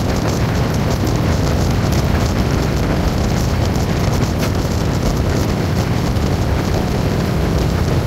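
Car driving at speed on a wet motorway: steady tyre-on-wet-road hiss and wind noise with a heavy low rumble, sprinkled with frequent light ticks.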